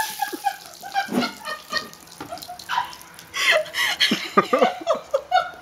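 A woman's wordless squeals and laughter just after being doused with a bucket of cold water, in short bursts that come thickest in the second half, with water still trickling and dripping.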